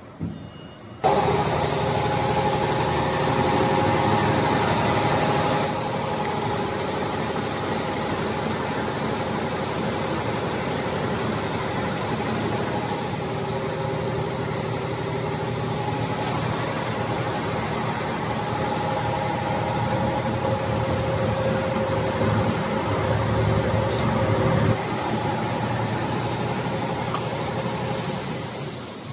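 Darin DRC-75 cereal bar forming and cutting machine running, a steady mechanical hum and whine of several held tones from its motors and drives. It starts abruptly about a second in and drops slightly in its deeper part near the end.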